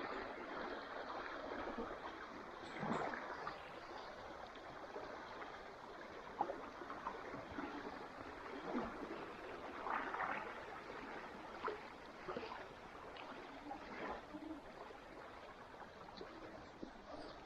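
River water running and gurgling, with a few faint, brief splashes or knocks scattered through it.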